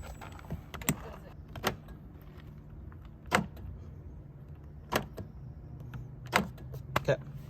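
Power door locks of a 1999 Lexus LX470 clunking through repeated lock and unlock cycles, a sharp clunk about every second and a half, as the driver's-door lock actuator works again after its Mabuchi motor was replaced.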